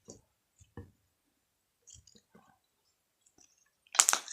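Slime being kneaded and stretched by hand: scattered faint wet clicks and squishes, then one loud, sharp squelch about four seconds in.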